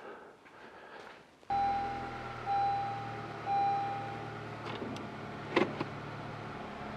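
A 2017 Honda Accord is switched on with a steady low hum about a second and a half in. Its dashboard chime then beeps three times, each tone about a second long, followed by a couple of faint clicks near the end.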